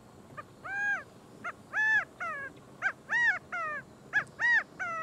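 An animal calling in a quick series of short, high, pitched calls, about a dozen, each rising then falling or sliding down.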